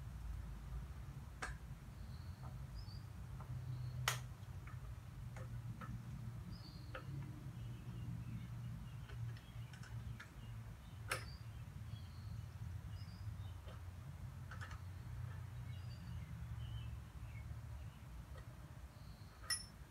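Scattered, irregular metal clicks and ticks of hand tools on the clutch cable fittings at the clutch arm as the emergency clutch cable kit is snugged up. The sharpest clicks come about 4 s in, about 11 s in and near the end, over a low steady hum.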